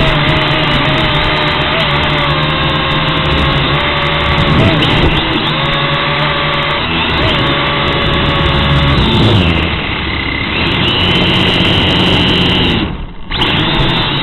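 WLtoys toy quadcopter's motors and propellers buzzing loudly, picked up close by its onboard camera, with whining tones that shift in pitch as the throttle changes. The buzz drops out briefly about 13 seconds in, then comes back.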